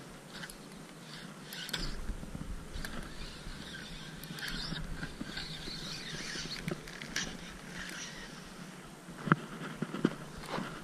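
Shimano spinning reel being cranked, a light mechanical winding with scattered clicks, followed near the end by two sharp knocks about a second apart.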